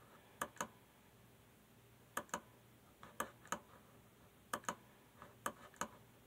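Faint clicks on a Samsung Chromebook, mostly in quick pairs, six or seven times about a second apart.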